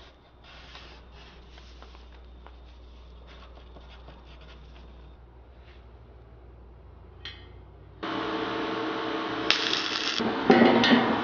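Faint clicks and pencil scratching from measuring and sketching at a workbench, then about eight seconds in a much louder sound cuts in abruptly, with music.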